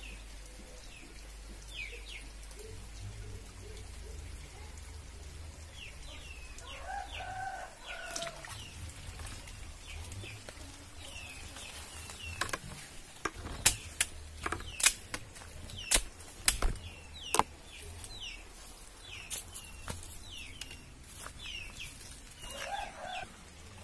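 Small birds chirp repeatedly throughout, and a chicken clucks a couple of times. About halfway through comes a run of sharp slaps and knocks, the loudest sounds here: a freshly landed snakehead flapping on dry leaves and ground.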